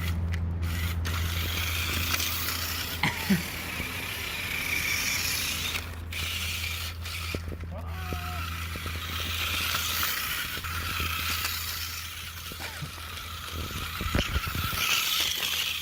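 Small electric motor and plastic gearbox of a cheap toy RC car running with a steady hum and a ratcheting gear rattle, its tires only loosely pushed back onto the wheels.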